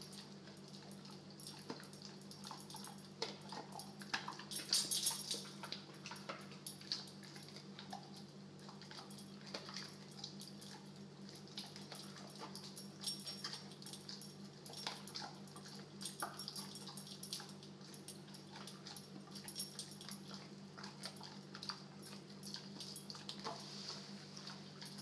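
American bulldog chewing a bully stick: irregular wet smacks and clicks from his mouth, thickest about five seconds in.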